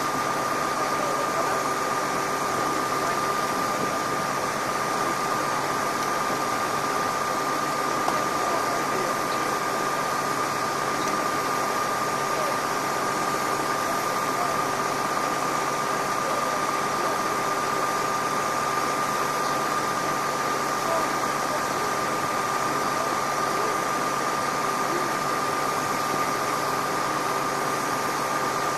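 Steady mechanical hum of idling bus engines and air-conditioning units, with a constant high whine over a broad, even rush of noise.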